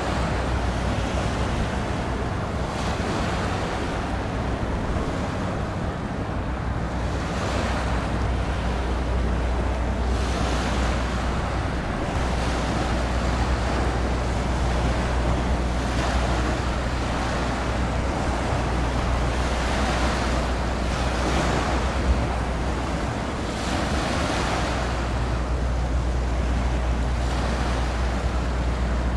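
Wind gusting over the microphone, with the wash of waves and a steady low rumble underneath.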